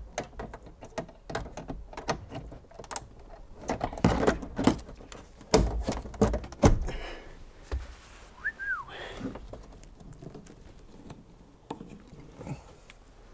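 Hand-handling noises inside a car cabin: a run of clicks, knocks and a few heavier thumps as roof-console trim, a cable and the cargo-net fittings are worked by hand, with one brief high chirp about eight and a half seconds in.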